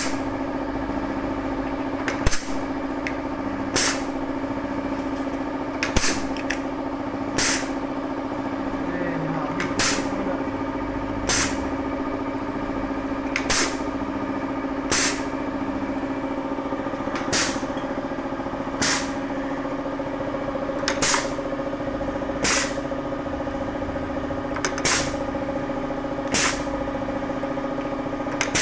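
Fully automatic pin press machine running with a steady hum. Short, sharp hissing strokes come in pairs about a second and a half apart, one pair roughly every three and a half seconds, one pair for each pressing cycle.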